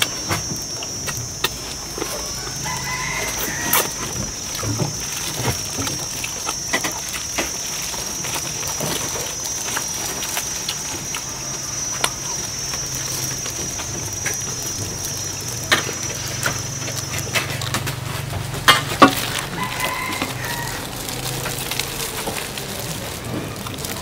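Mealtime clicks and knocks of dishes and utensils, scattered throughout, over a steady high-pitched whine that cuts off suddenly about three quarters of the way in. A chicken calls briefly twice in the background, near the start and near the end.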